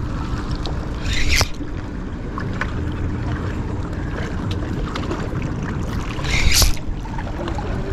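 Wind buffeting the microphone over small waves lapping at a concrete seawall, with a faint steady hum underneath. Two short louder rushing splashes stand out, about a second in and a little after six seconds.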